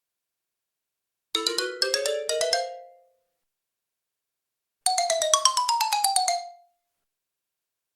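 Tuned mallet percussion playing two quick runs of struck notes, a cartoon sound-effect flourish. About a second in, the first run climbs in pitch; a few seconds later, the second run falls.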